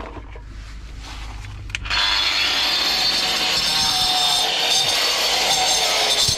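Corded reciprocating saw starting about two seconds in and cutting steadily into an old drain pipe, a loud rasping cut over a steady motor whine.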